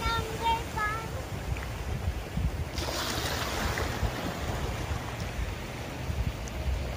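Wind buffeting the microphone over small waves washing in shallow sea water. A few short, high-pitched calls sound in the first second.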